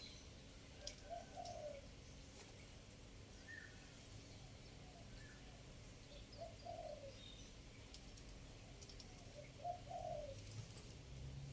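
Spotted dove cooing: three faint phrases, a few seconds apart, each a couple of soft short notes leading into a longer coo. This is the three-note 'kuk' call used as a decoy call for spotted doves.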